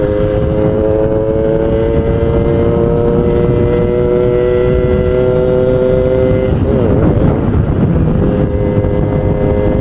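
Suzuki GS Tornado's two-stroke single running hard in third gear, its pitch climbing slowly for about six seconds. It then breaks up unevenly for a couple of seconds before settling to a steady note. The break-up is the 'ngok' hiccup the rider hears at three-quarter throttle, a sign of the carburettor's mixture being off.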